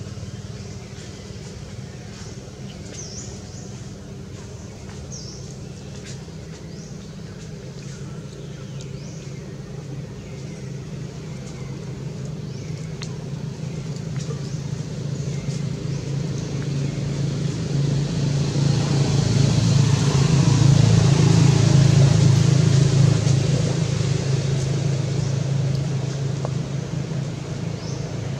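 A motor vehicle's engine hum that grows louder to a peak about three-quarters of the way through, then fades as it passes.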